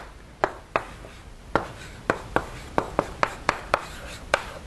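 Chalk writing on a blackboard: about a dozen sharp, irregular taps and short strokes as an equation is written out.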